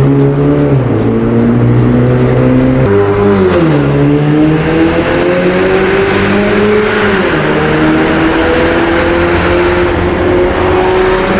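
Ford Mustang GT's V8 with a Varex valved exhaust, accelerating hard through the gears in a tunnel, heard from inside the cabin. The engine note climbs steadily and drops at two upshifts, about three and a half and seven seconds in.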